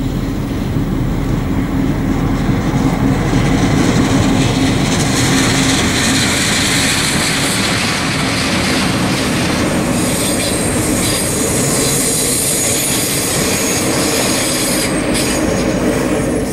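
A diesel locomotive hauling a Renfe class 447 electric unit approaches and passes close by. The engine's steady drone comes first, then the rushing rumble of the unit's wheels over the rails. A thin high wheel squeal runs through the second half.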